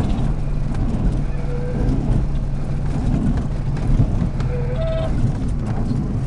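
Cessna 207's six-cylinder piston engine running at low power while the plane rolls out on a dirt strip, with rough rumbling from the landing gear on the uneven surface. A short wavering tone sounds twice, about a second and a half in and again near the end.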